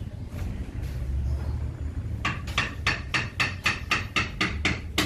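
Hands scrubbing shampoo lather into a wet long-haired cat's fur: from about two seconds in, a run of short rhythmic rubbing strokes at about four a second, over a low steady hum.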